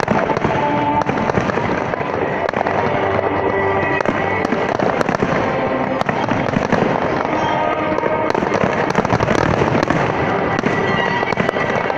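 Fireworks going off in a dense, unbroken volley of bangs and crackling.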